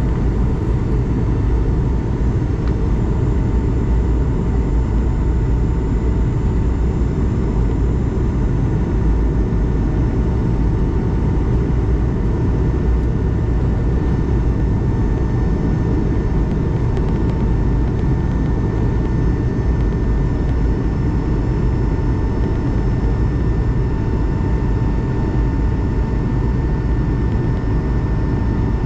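Steady cabin noise of an Airbus A220-300 in flight, heard from a seat inside the cabin: a deep, even rush of airflow and its Pratt & Whitney PW1500G geared turbofans, with a few faint, steady whining tones above it.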